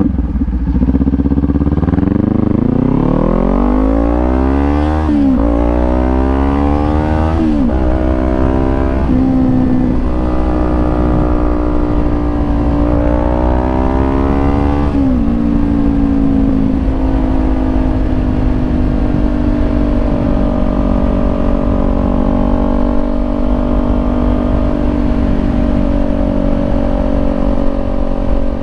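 Kawasaki Ninja 400 parallel-twin engine through a Leo Vince GP Corsa EVO slip-on exhaust, accelerating through the gears. The pitch climbs and drops sharply at each upshift, three times in the first fifteen seconds, then the bike holds a steady cruise.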